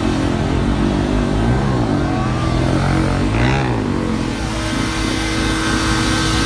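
Car engine revving hard in repeated blips, its pitch rising and falling three times. From about four seconds in it is held steady at high revs as the car spins its tyres in a smoky burnout.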